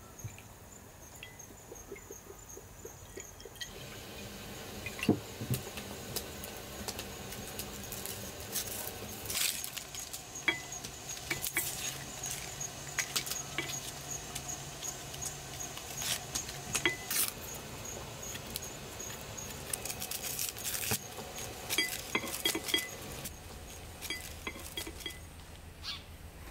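Scattered light clinks, taps and knocks of kitchenware being handled during cooking, over a steady high-pitched, evenly pulsing chirp of insects.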